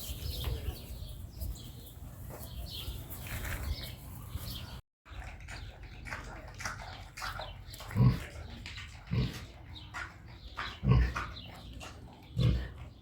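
Pig grunting: four short, deep grunts in the second half, each standing out loudly over a low background.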